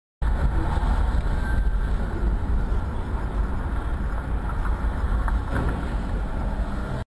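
Steady low rumble of a car driving on a city street, engine and road noise picked up by a dashcam microphone inside the car.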